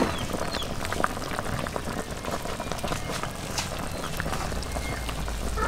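Curry boiling and bubbling in a large wok, with scattered light clicks from a metal ladle scooping it out.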